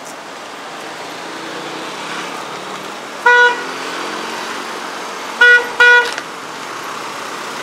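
Vehicle horn honking three times over steady street traffic: one short toot a little past three seconds in, then two quick toots about two seconds later.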